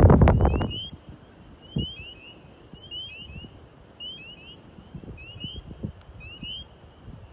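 Wind buffets the microphone for the first second. Then a chorus of small frogs calls from a pond: short rising high-pitched chirps in twos and threes, about one group a second, over a steady high trill of more distant callers.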